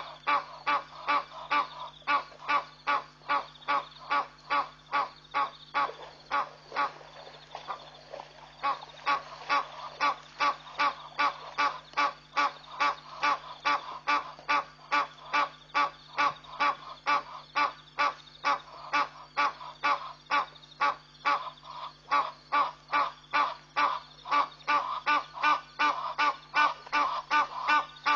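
A night animal calling over and over at a very even pace, about two and a half calls a second, with a steady low hum underneath.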